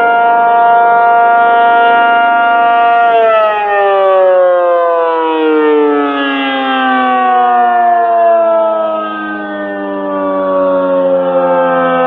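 ACA Penetrator-50 (P-50) rotating tornado siren, a 50 hp three-phase motor driving an 8/12-port chopper, sounding its two-tone alert chord, now correctly wired rather than reverse wired. It holds a steady pitch for about three seconds, then the pitch starts falling slowly as the siren winds down.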